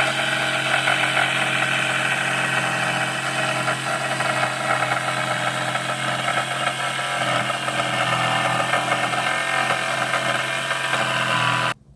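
Battery-powered saw running steadily as it cuts through a wooden board, then stopping suddenly near the end.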